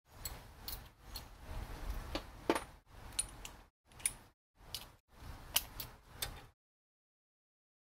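Metallic clinks and clicks of hand tools and brake parts being handled, in short stretches that stop abruptly in dead silence several times.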